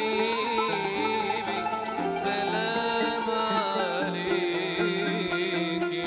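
Live Arabic traditional ensemble music in Andalusian style: plucked strings under a melody line that wavers with vibrato.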